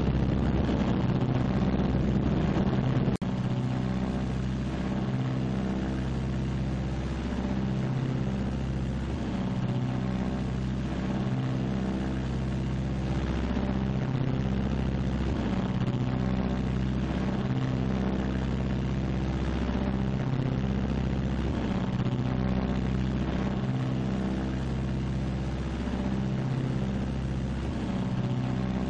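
Steady drone of the Martin B-26 Marauder's twin Pratt & Whitney R-2800 radial engines and propellers in flight, with a slow, regular throb. A sharp click about three seconds in, after which the drone is slightly quieter.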